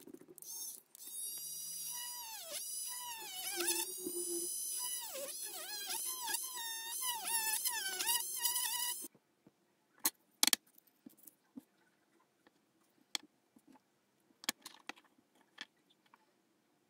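A small pen-style rotary tool whines at high speed as its bit drills into the side of a small wooden box, the pitch dipping again and again as the bit bites and recovering as it eases off. It cuts off suddenly about 9 seconds in, followed by scattered light clicks and taps of the box and tool being handled.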